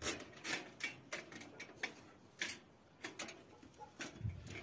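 Irregular light clicks and knocks, about a dozen spread over a few seconds, with faint rubbing between them.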